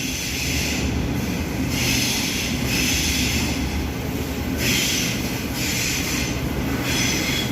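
Electric suburban passenger train moving along a station platform: a steady low rumble with a high hiss that comes and goes several times.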